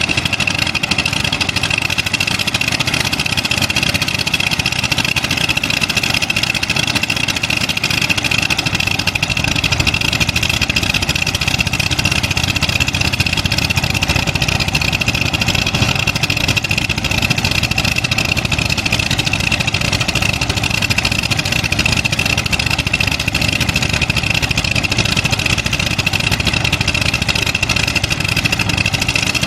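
Kobelco SK200 hydraulic excavator's diesel engine running steadily under working load, with a steady high-pitched whine over it.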